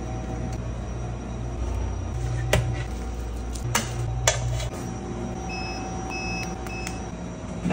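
A vending machine's push-button keypad beeping three times in quick succession as its keys are pressed, over a steady low hum. A few sharp clicks come before the beeps, about midway through.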